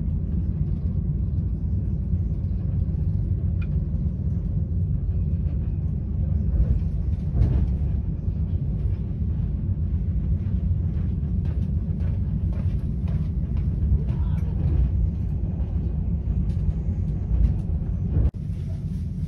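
Inside a Railjet passenger coach at speed: a steady low rumble of the wheels on the track, with a run of clicks and knocks from the wheels crossing rail joints and points from about six seconds in.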